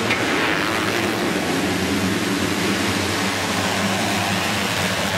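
A full gate of 250-class motocross bikes at full throttle, launching off the start line together: many engines blended into one dense, steady wall of sound.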